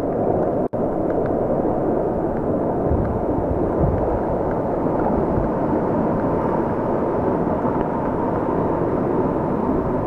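Steady rush of moving water, sea surge churning against rock with a waterfall splashing. It cuts out for an instant a little under a second in.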